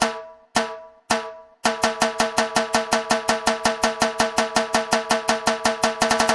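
Dance-music snare-drum build-up. A pitched drum hit repeats about twice a second, breaks into an even roll of about five hits a second after about a second and a half, and quickens again near the end.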